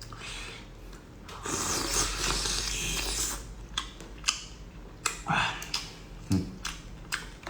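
Seafood being eaten: about two seconds of noisy sucking and eating sounds, then a run of sharp clicks and cracks of shell.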